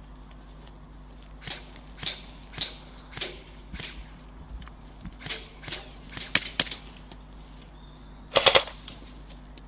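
Airsoft rifles firing: single shots about every half second for several seconds, then a short rapid burst near the end, the loudest of all.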